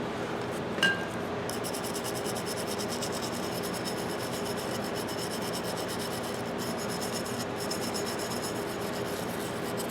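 Brass wire brush scrubbed back and forth by hand over the steel of an old pipe wrench, a steady scratchy rubbing as the rust is cleaned off to brighten the metal.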